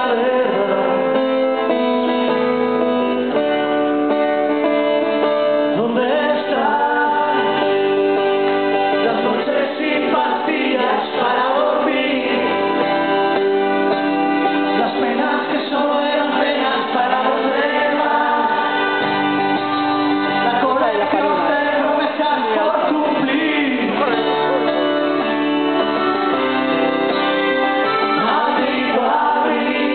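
Music from a rock band playing a song, with instruments and a sung melody.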